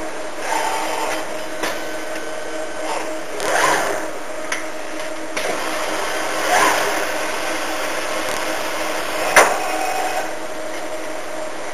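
Automated singulation machine running through its cycle. A steady hum with a constant tone carries on underneath. Two short whirs that rise and fall in pitch come about 3.5 and 6.5 seconds in as the gantry and carriage move, and a sharp click comes near the end.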